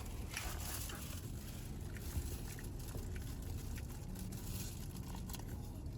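Steady low rumble of background noise, with a few faint clicks and rustles.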